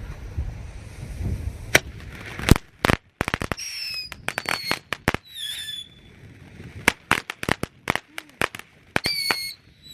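Killer bees consumer firework going off after wind noise on the microphone: a string of sharp cracks and pops, mixed with several short, high whistles from the whistling pieces, some of them wavering.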